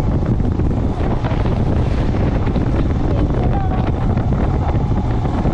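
Wind buffeting the microphone of a moving motorcycle, a steady loud rumble with the bike's road noise under it.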